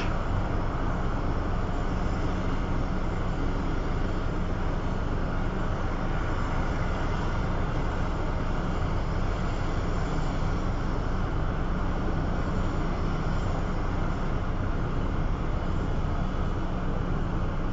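Diesel engine of a Caterpillar 6040 mining excavator running steadily at an even speed.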